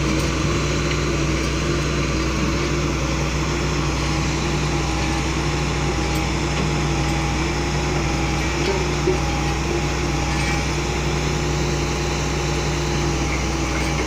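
Diesel engine of a Hitachi excavator-based pile-driving rig running steadily, a constant hum with a faint wavering whine over it.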